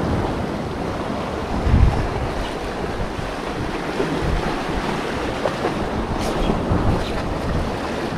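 Sea surf washing on the shore, with wind buffeting the microphone in low rumbling gusts; one louder gust about two seconds in.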